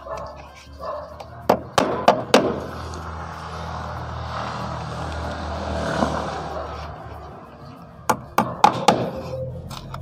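Hammer striking the concrete nails of plastic cable clips, fixing an RG6 coaxial cable to a wall: two quick sets of four blows, about a second and a half in and again about eight seconds in, with a steady rushing noise between them.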